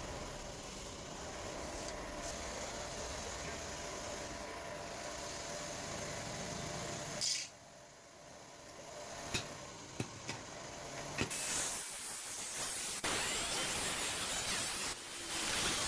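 Stick-welding arc sizzling: a steady hiss at first, then a short quieter gap broken by a few sharp clicks. From about eleven seconds in comes a louder crackling hiss.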